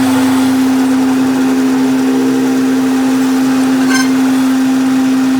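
Electric workshop machine running with a loud, steady hum, with a short click about four seconds in.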